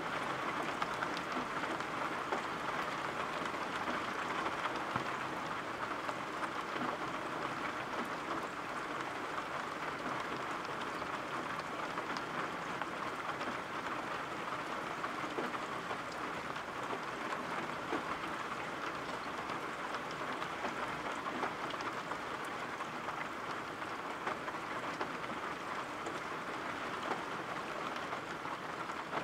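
Steady rain falling: an even hiss with a fine patter of individual drops.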